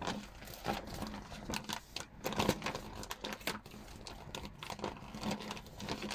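Paper gift bag crinkling and rustling in irregular bursts as its stapled, folded top is picked open by hand, with small sharp clicks among the crackle.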